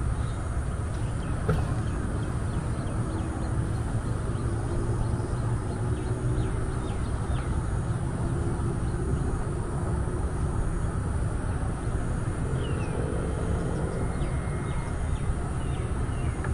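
Steady low outdoor rumble with faint high bird chirps now and then.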